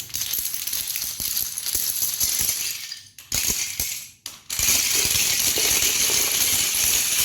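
Fireworks crackling and hissing: a dense rattle of sharp snaps over a hiss, in short clips that break off twice, the last part mostly a steady hiss.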